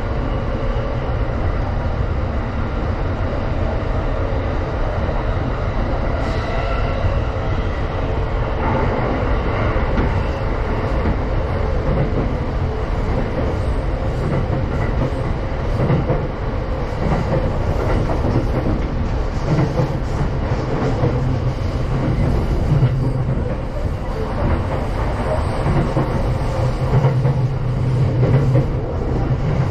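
Running noise of a JR East Tokaido Line commuter train, heard inside the passenger car: a steady rumble of wheels on the rails as the train travels along the line.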